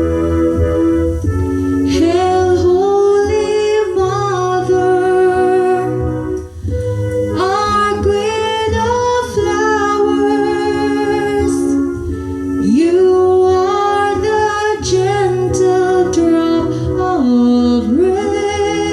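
Music: a singing voice carrying a wavering melody over long held chords and a steady bass.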